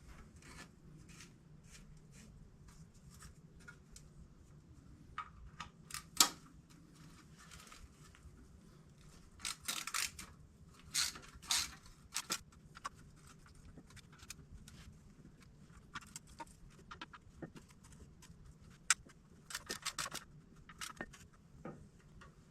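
Steel parts being handled and fitted together, a broken flex plate set onto a torque converter: scattered light clinks and metal scrapes, with one sharp knock about six seconds in and bursts of scraping around ten to twelve seconds and again near twenty.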